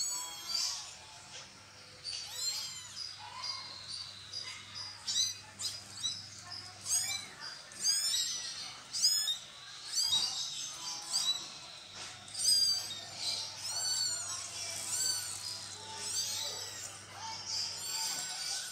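Newborn kittens mewing: high, thin cries repeated in quick runs of several a second.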